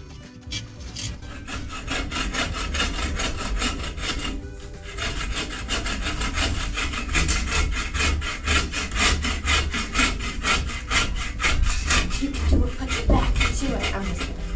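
Hand saw cutting through a log or branch for firewood, rasping in quick, regular back-and-forth strokes, with a short pause about four seconds in before the sawing resumes.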